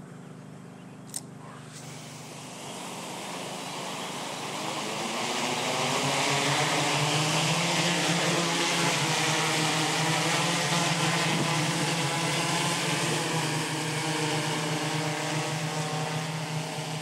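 Freefly ALTA Pro heavy-lift multirotor drone running on seven motors, carrying a payload: the propellers spin up and the drone lifts off, its multi-tone propeller hum and rushing air growing louder over the first several seconds and then holding steady. A single sharp click sounds about a second in.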